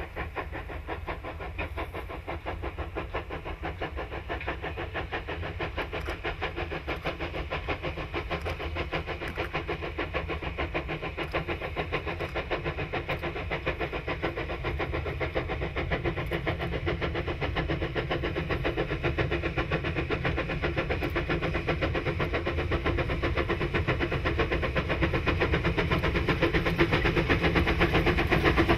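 South African Class NGG11 narrow-gauge Garratt steam locomotive working towards the camera under steam, its exhaust beating in a quick, steady rhythm that grows steadily louder as it approaches.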